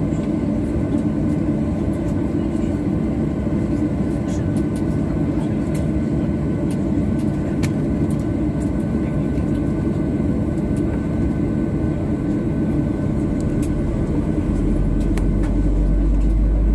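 Steady cabin noise inside a Boeing 737-800's economy cabin, with a few faint clicks. Near the end a deep low rumble comes in and the noise grows a little louder.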